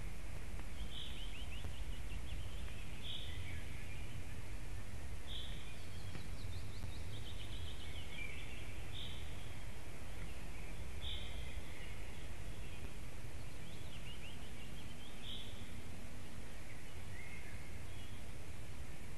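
Small woodland songbirds calling and singing: a short clear note repeated every two seconds or so, with a few fast falling trills from other birds, over a steady low rumble.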